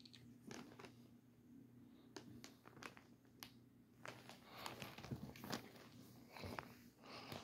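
Faint scattered rustles, scratches and soft taps from a kitten and a person's hand moving on carpet during play, growing busier from about four seconds in, over a steady low hum.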